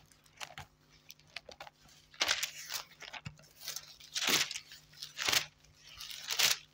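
Thin Bible pages being turned and leafed through by hand: a run of quick paper rustles, louder from about two seconds in.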